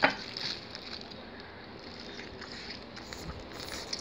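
Close-up eating noises: a sharp click at the start, then soft scattered crackles and clicks as a roast chicken drumstick is pulled apart by hand in plastic gloves and bitten into. The crackles grow busier near the end.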